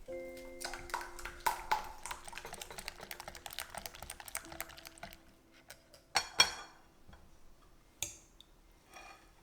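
Kitchen utensils tapping and clicking rapidly against a bowl, over a faint steady hum. About six seconds in come two sharper clinks close together, then one more near the end.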